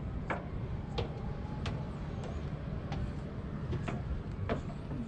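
Outdoor background noise: a steady low rumble with scattered short sharp clicks, about one a second.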